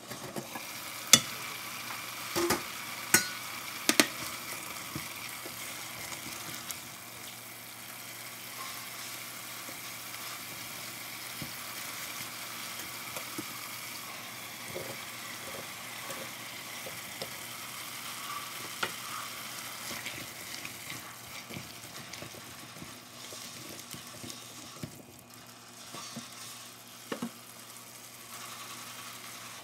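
Potatoes frying with a steady sizzle in a stainless steel pot while a silicone spatula stirs them. Several sharp knocks in the first few seconds come from the glass lid and spatula against the pot, with softer knocks later as the bell peppers are tipped in and stirred.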